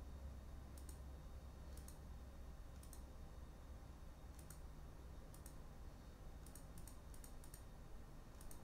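Faint, irregular clicks of a computer mouse, often in quick pairs, about a dozen in all, over a low steady hum.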